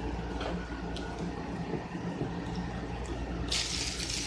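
Hands working sticky glitter slime over a plastic bag: quiet wet handling sounds over a steady low hum, then louder rustling from about three and a half seconds in.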